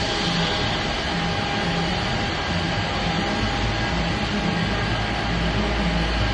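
Argon-shielded arc welding: a steady hissing buzz with a low throb that repeats in pairs.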